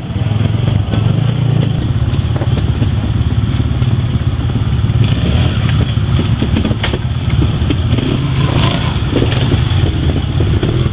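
Trials motorcycle engine running as the bike is ridden up over steep rocks.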